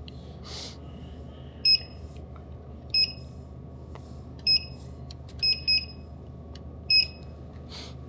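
Vending machine keypad beeping as its buttons are pressed, likely while setting an item's price: six short, high beeps at uneven intervals, two of them in quick succession near the middle. A steady low hum runs underneath.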